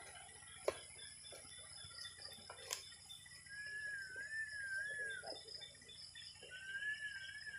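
A wavering whistle, two long notes that rise and fall in pitch, the first about three and a half seconds in and the second near the end, with a couple of sharp clicks in the first three seconds.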